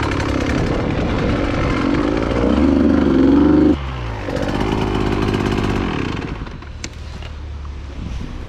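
Dirt bike engine running under throttle. The revs climb to their loudest about three and a half seconds in, drop sharply as the throttle shuts, pick up again, and the engine grows quieter over the last two seconds.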